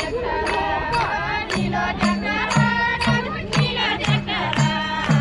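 Tharu Maghi dance music: voices singing over sharp percussion struck about twice a second. A low-pitched drum joins on the same beat about a second and a half in.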